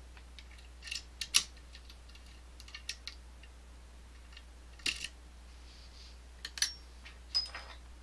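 Lock-picking tools (tension bar and pick hook) clicking and tapping against an Assa Twin Exclusive pin-tumbler lock as they are set into the keyway. The clicks are short, sharp and irregularly spaced, the loudest about a second and a half in, over a low steady hum.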